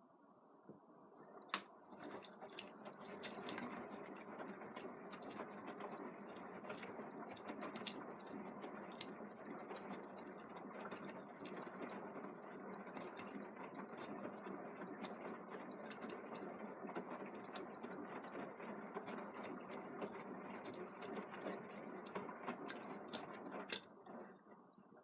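Beko WM74165W washing machine turning its drum in the wash phase: the motor runs and the load tumbles, with many sharp clicks. It starts about two seconds in and stops near the end.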